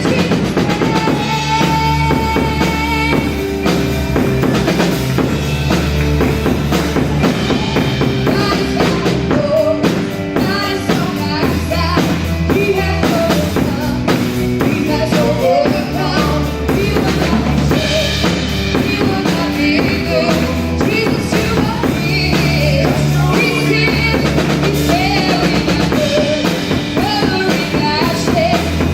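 Live gospel band playing an up-tempo worship song: drum kit keeping a steady beat under bass guitar and keyboard, with singing over the top.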